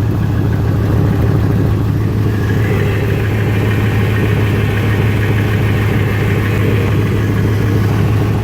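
2001 Ford van engine idling steadily, heard from underneath with its exhaust escaping through rust holes in the pipe: an exhaust leak.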